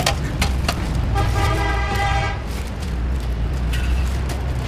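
A vehicle horn sounds once for about a second and a half, over a steady low rumble of traffic. Near the start come a few sharp metallic clinks as steel cylinder liners are handled.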